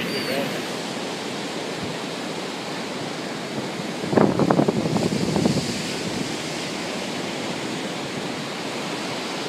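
Steady rush of water: the river's floodwater pouring through its breached sandbar into the ocean surf. A brief louder, rough burst of noise rises about four seconds in and dies away by six seconds.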